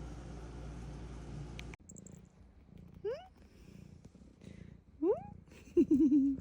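Domestic cat purring and calling: two short rising chirps, then a louder wavering meow near the end. A steady low hum fills the first couple of seconds and cuts off abruptly.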